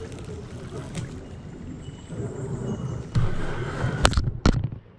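Kayak paddling in a creek: paddle strokes and water sloshing and dripping, growing louder about three seconds in. Two sharp knocks follow about four seconds in, as the paddle blade passes close by.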